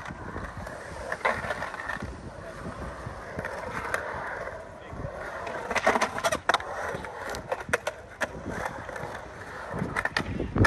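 Skateboard wheels rolling over a concrete bowl's transitions, broken by several sharp clacks and scrapes as the board and trucks hit and work along the coping, the loudest about six seconds in.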